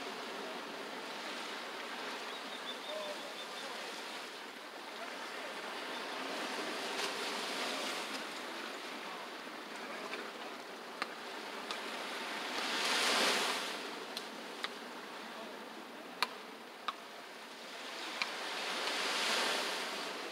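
Ocean surf washing onto a sandy beach, a steady wash with two louder breakers, one about two-thirds of the way through and one near the end. A few brief sharp clicks are heard in the second half.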